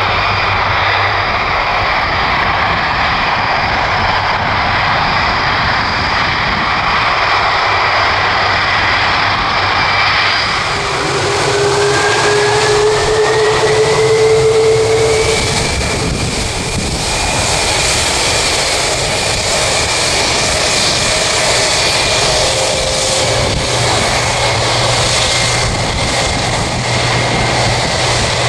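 Four Rolls-Royce RB211-524 turbofans of a Boeing 747-400F freighter running on the ground, a steady jet whine over a broad rumble. About a third of the way in, a whine rises in pitch over several seconds and then holds.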